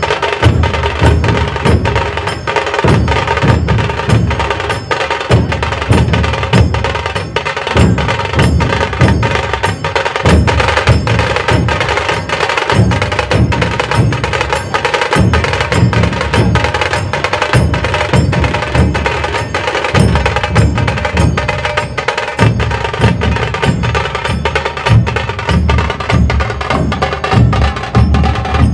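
Dhol Tasha ensemble playing: deep dhol drum beats under a fast, steady tasha rhythm.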